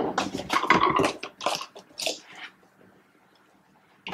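Plastic bottles handled in a hurry on a table: a glue bottle set down and the cap taken off a laundry-detergent jug, a quick run of clicks and knocks for about two and a half seconds, then quiet.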